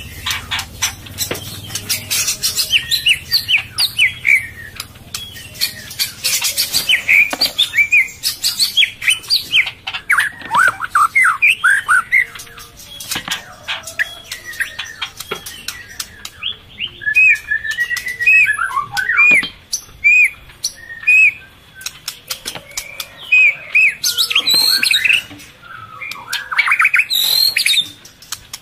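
White-rumped shama (murai batu) calling: a dense, unbroken run of sharp chirps, clicks and short whistled notes, with a sequence of repeated whistled notes partway through.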